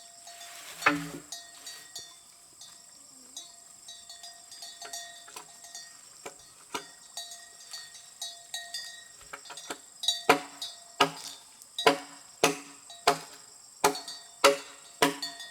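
Hammer blows with a short ringing tone, scattered at first, then steady at about one and a half a second from about ten seconds in, over a steady high insect drone.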